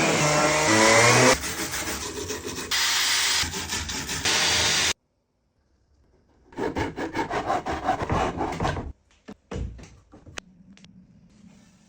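Woodworking on an old wooden table: a loud machine noise that cuts off suddenly about five seconds in, then quick back-and-forth rubbing on wood at about five strokes a second, followed by a few sharp knocks.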